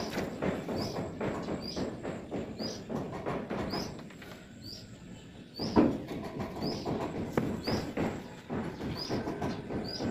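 Hand work at a wall in repeated scraping strokes, each with a short high squeak. The strokes pause briefly about four seconds in, then a sharp knock.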